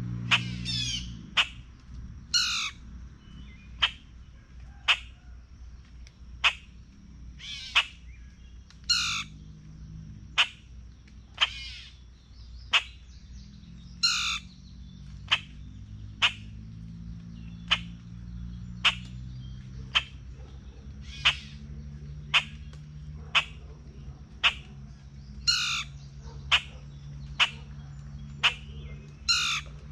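Birds at a feeder calling: a sharp chip note repeated about once a second, with a few longer, harsher calls mixed in. A steady low hum runs underneath.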